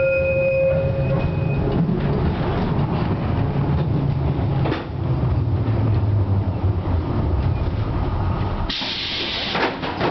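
FVV CSM-4 articulated tram running on its rails, with a steady low rumble of motors and wheels; a high wheel squeal fades out in the first second and a half. About nine seconds in comes a loud hiss lasting about a second.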